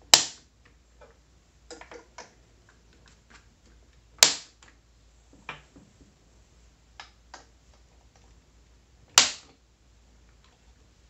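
Hard plastic action figures handled and set down on a shelf: three sharp knocks roughly four to five seconds apart, with lighter taps and clicks between.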